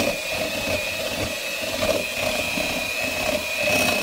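Electric mixer running steadily, beating pudding in a large mixing bowl, with a thin steady high whine over the motor noise.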